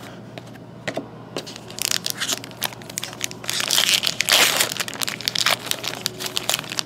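A foil trading-card pack wrapper crinkling and tearing as it is opened by hand. A few light clicks come about a second in, then the crackling builds and is loudest around the middle.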